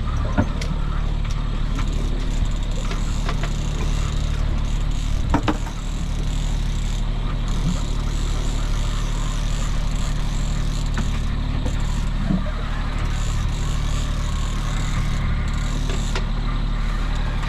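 Sailboat's engine running steadily under way, a constant low hum under the rush of wind and water, with a few sharp clicks and knocks.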